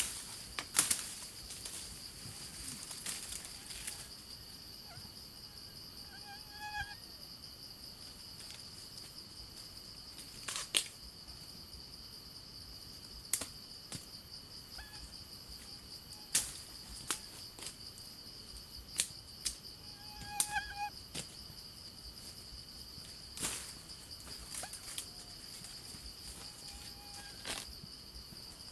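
Steady high-pitched drone of insects, crickets or cicadas, with irregular sharp snaps and cracks every few seconds and a couple of short pitched calls, like a bird, around a quarter of the way in and past the middle.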